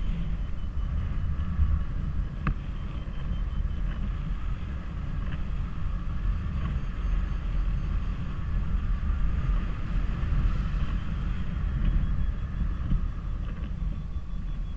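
Wind buffeting the camera's microphone in paraglider flight: a steady low rumble, with a few faint ticks now and then.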